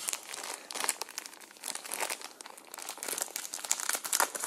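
Clear plastic wrapping on a trading card binder crinkling and rustling in irregular bursts as it is handled.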